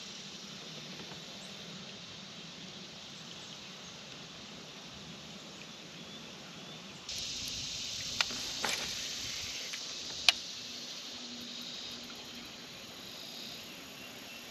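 Summer outdoor ambience on the water: a steady high insect buzz that gets louder about seven seconds in, with three sharp clicks a little after that.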